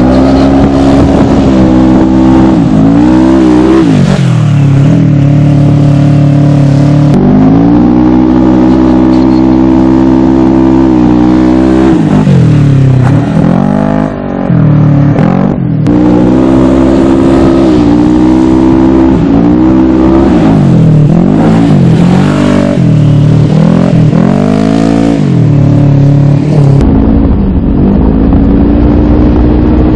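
Polaris RZR side-by-side engine revving up and down again and again under hard driving, its pitch climbing and dropping with each stab of throttle. The sound jumps abruptly a few times. Near the end it is heard from on board, with wind buffeting the microphone under a steadier engine note.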